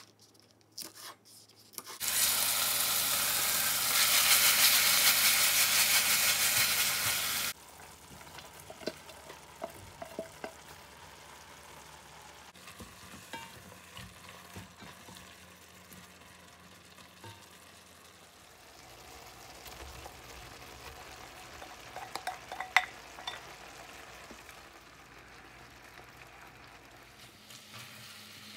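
A few knife chops on a cutting board. Then a loud burst of sizzling for about five seconds as beef and vegetables fry in a hot oiled cast-iron pan, settling to a steady quieter sizzle with stir-frying: a spatula scraping and tapping in the pan, with one sharp knock about three-quarters of the way through.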